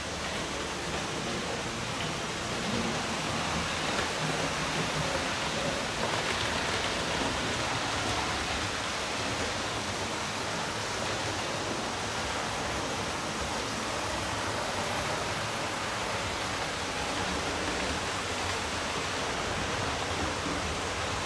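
Several 00 gauge Tri-ang/Hornby model trains running at once on the layout: a steady, even whirring rumble of motors and wheels on the track.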